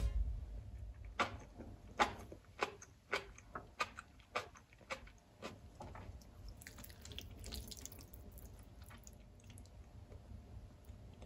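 Eating from a tamago tofu and mushroom rice bowl with a wooden spoon: about a dozen soft, irregular clicks over a few seconds, from the spoon against the ceramic bowl and from wet eating sounds, then faint room noise.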